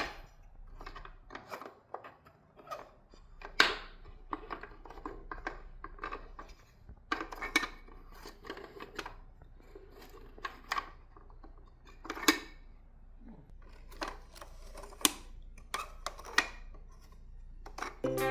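Irregular small clicks, taps and knocks of objects being handled at close range, a few sharper than the rest, over a faint steady low hum.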